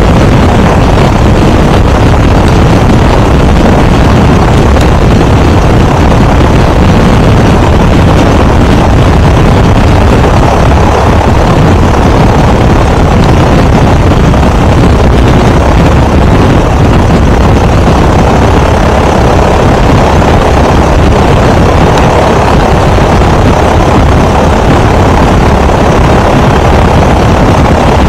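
1981 Great Lakes biplane's air-cooled four-cylinder piston engine and propeller running steadily and loudly at low power while the aircraft sits still on the ground, heard from the open cockpit.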